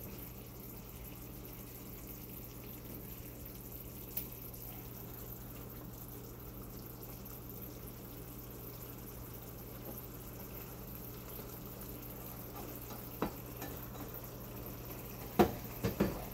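Chicken livers simmering in a soy-and-oyster-sauce adobo in a non-stick frying pan: a steady bubbling hiss. A few knocks of the stirring spoon against the pan come near the end, the loudest of them in a short cluster.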